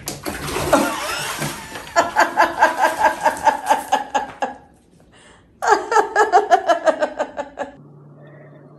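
A splash of water as a cat goes into a filled bathtub, then a person laughing hard in rapid, rhythmic bursts, twice over.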